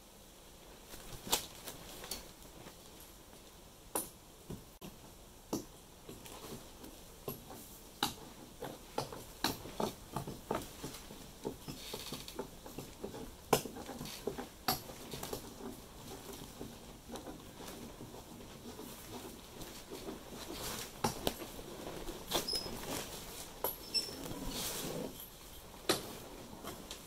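Scattered light taps, scratches and rustling of fiberglass cloth being pressed and smoothed by hand along the inside of a plywood trimaran float, with irregular sharp clicks that come more often in the second half.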